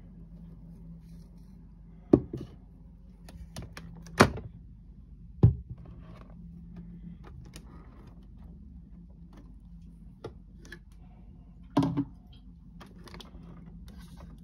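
A few sharp knocks and thuds, about two, four and five and a half seconds in and a double one near twelve seconds, with small ticks between, over a faint steady low hum.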